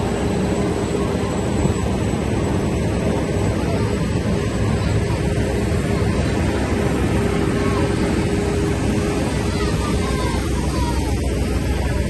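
Heavy-haul truck moving a refinery reactor on its multi-axle trailer: a steady, loud diesel engine drone with a constant hum in it.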